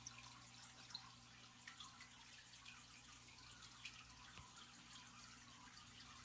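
Faint aquarium pump: a low steady hum with small water drips and trickles.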